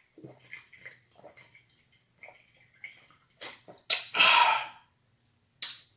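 A man gulping a drink from a can, with a series of soft swallows and mouth noises. About four seconds in, as the can comes down, there is a sharp click followed by one loud, breathy exhale.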